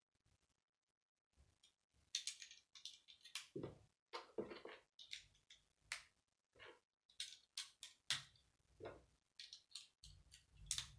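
Plastic Lego bricks clicking and snapping as they are handled and pressed onto a model by hand: an irregular string of sharp clicks starting about two seconds in.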